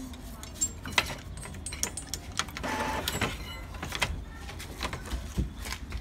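Epson L3150 ink-tank printer running a head-cleaning cycle: irregular mechanical clicks and ticks, with a short whir about two and a half seconds in.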